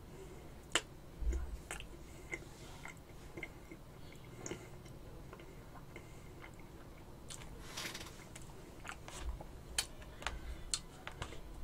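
Faint eating sounds: scattered light clicks and scrapes of a metal spoon in a glass bowl of ice cream cake, with soft mouth sounds of eating. The clicks come more often in the last few seconds.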